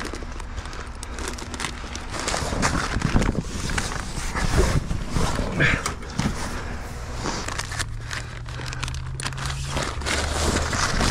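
Plastic flatbed tarp rustling and crinkling as it is handled, with footsteps and light clicks of tarp hooks and strap hardware. A low steady hum comes in about seven seconds in.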